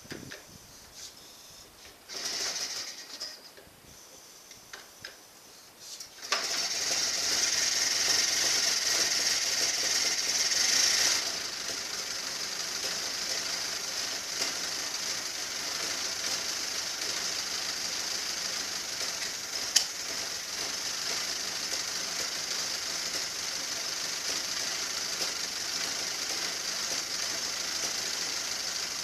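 Cold 1926 Ford Model T four-cylinder side-valve engine starts running about six seconds in. It runs faster for about five seconds, then settles into a steady, even idle.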